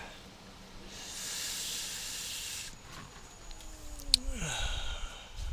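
A hiss of air in a semi truck's cab lasting about two seconds, the kind heard when the air brakes release while the truck creeps along. Near the end comes a short whine that slides down in pitch.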